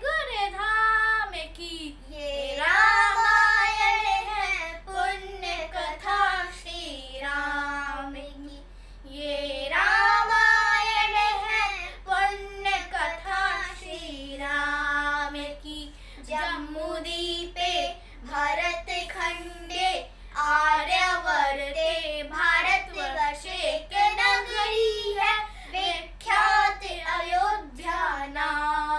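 Two children, a girl and a boy, singing a devotional song from the Ramayan, with long held notes in the first half and quicker, shorter phrases in the second half.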